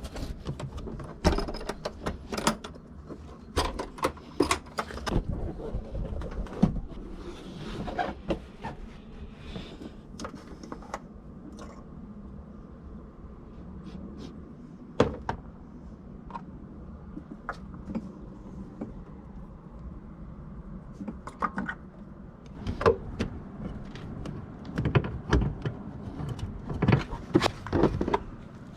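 Scattered clicks, clanks and knocks of tools and parts being handled while working on a car's oil change, with a quieter stretch in the middle and a busier run of knocks near the end.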